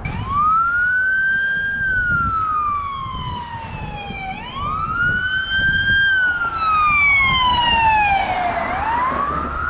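Emergency vehicle siren wailing: the tone rises quickly, then falls slowly, and starts over about every four seconds, three times. A low rumble runs underneath.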